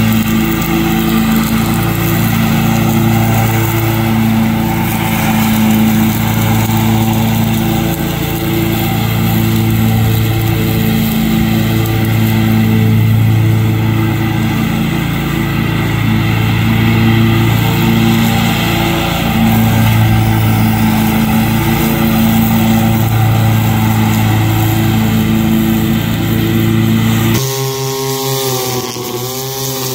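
Engine of a Bobcat stand-on zero-turn mower running steadily at mowing speed, its hum swelling and easing every few seconds. Near the end it gives way to a two-stroke Echo string trimmer running at high revs, its whine dipping briefly.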